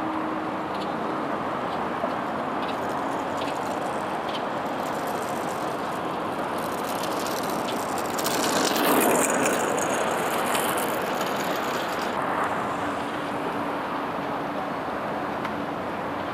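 Steady roadside noise of traffic and strong wind, swelling for a few seconds about halfway through as a vehicle passes, with a few faint ticks early on.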